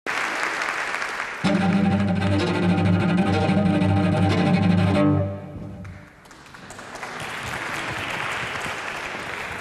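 A cello sounds one long, low bowed note, starting about a second and a half in and fading out around halfway through. Before and after it comes an even haze of audience noise in the hall.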